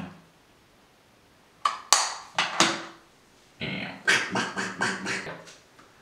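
Laughter in short breathy bursts: a brief fit about two seconds in, then a longer run of quick bursts, about four a second, in the second half.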